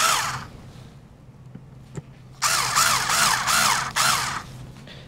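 Screwdriver driving the screws that hold a network daughter card to a Dell PowerEdge R630 server's board, heard as two bursts of scratchy whirring. One ends about half a second in, and the other starts about two and a half seconds in and lasts about two seconds, wavering a few times a second.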